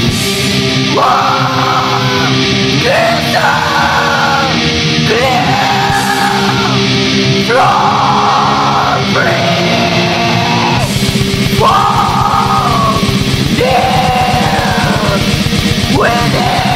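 Black metal recording: harsh screamed vocals in repeated phrases of about a second and a half each, over a steady wall of distorted band sound.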